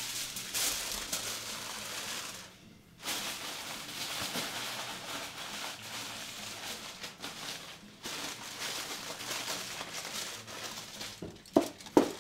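Aluminium foil crinkling and rustling as it is pulled over and pressed down around a roasting tray, with a short lull about two and a half seconds in. Near the end come two short, louder bumps.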